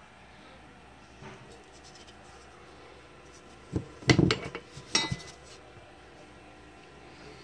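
A short clatter of knocks and metallic clinks, about four seconds in, as katanas and their metal guards are handled on a table, ending with a brief ringing clink.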